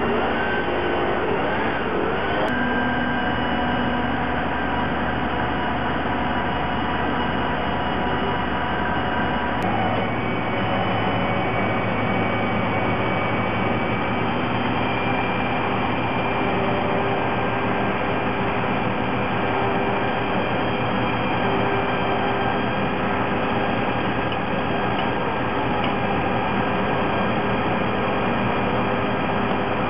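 Tree-service heavy machinery running steadily: a diesel engine drone with several held tones. The tones shift abruptly about two and a half seconds and again about ten seconds in.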